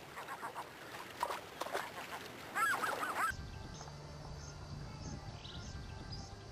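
Gulls calling, a series of arched, rising-and-falling cries that grow loudest near the middle. About three seconds in the sound cuts abruptly to a low steady hum with faint, high bird chirps.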